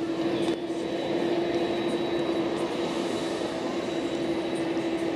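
Steady jet airliner noise on the airport apron: an even rushing hum with a held mid-pitched tone and a faint thin high whine over it.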